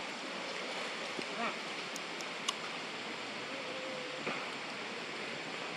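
Steady outdoor background hiss with a few faint clicks, the sharpest about halfway through.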